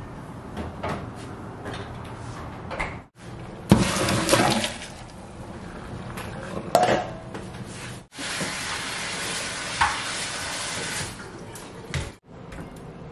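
Kitchen sounds at a stainless steel sink: dishes clinking, then a loud rush of water about four seconds in as spaghetti is drained into a metal strainer. Later the tap runs with a steady hiss for about three seconds.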